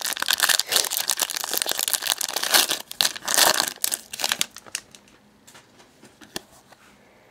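Foil wrapper of a Panini NASCAR trading-card pack being torn open and crinkled for about four and a half seconds. Then a few faint clicks as the cards are handled.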